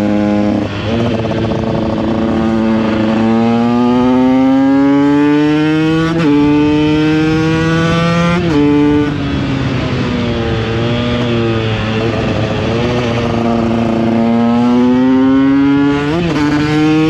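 Small two-stroke supermoto engine accelerating through the gears: the revs climb and drop sharply at upshifts about six and eight and a half seconds in, then ease off and waver for a few seconds before climbing again to another shift near the end.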